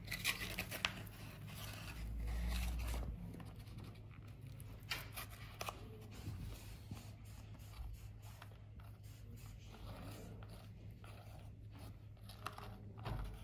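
Faint handling noises of a vinyl decal being pressed and smoothed onto a motorcycle wheel rim: scattered light scrapes, rustles and small taps over a steady low hum.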